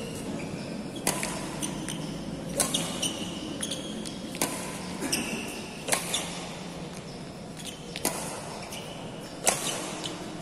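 Badminton rackets striking shuttlecocks in a hitting drill: about six sharp cracks, roughly every one and a half seconds, ringing in a large sports hall, with short high squeaks between the hits.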